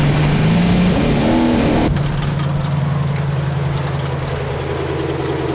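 Trophy truck's race engine heard from onboard, revving up and down under throttle. About two seconds in the sound changes abruptly to the truck's engine running steadily at low revs as it rolls slowly.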